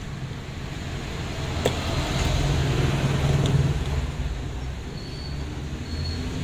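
Low engine rumble of a motor vehicle, growing louder about two seconds in and easing off after about four seconds. A few small clicks sound over it.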